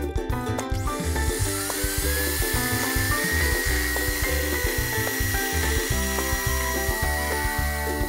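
Electric hand mixer starting up about a second in, its motor whine rising and then holding steady as its beaters whip cream, over background music with a steady beat.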